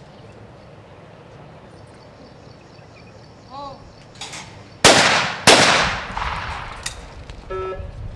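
Two 12-gauge shotgun shots fired in quick succession, about two-thirds of a second apart, at skeet clay targets. Each shot rings out with a long echoing tail.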